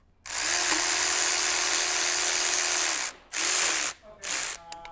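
Electric power tool running in three bursts, one of about three seconds and then two short ones, with a steady whine that drops as it spins down. It is likely spinning out the oil pan bolts on a Genesis Coupe 2.0T engine.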